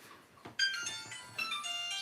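Classic Nokia-style mobile phone ringtone: after a click, a melody of quick electronic notes starts about half a second in and keeps playing.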